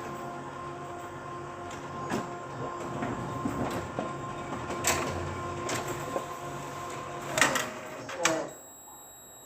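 Photocopier running with a steady hum and whir, with sharp mechanical clicks every second or two. Two louder clacks come near the end, and then the machine stops about 8.5 seconds in, leaving only a faint hum.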